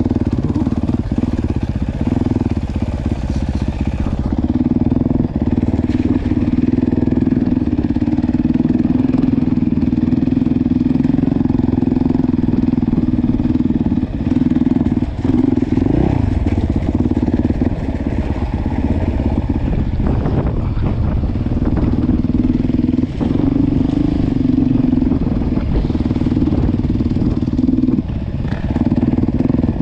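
Dirt bike engine running steadily under the rider, heard close up from the bike itself. About halfway through the throttle is briefly shut and opened again, with a short rev, and there are a few more brief throttle lifts later.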